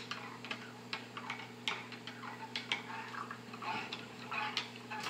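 Spoon stirring hot chocolate in a ceramic mug, clinking lightly against the mug's sides in irregular taps, a few a second.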